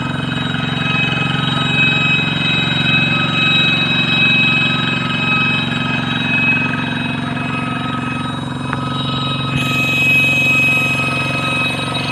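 Single-cylinder diesel engine of a Kubota hand tractor running steadily as the tractor drives its cage wheels through a wet rice paddy. A steady high-pitched whistling tone rides over the engine.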